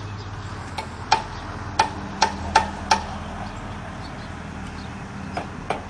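Hammering: a quick run of sharp strikes with a ringing note, about three a second, then a pause and two more strikes near the end, over a steady low machine hum.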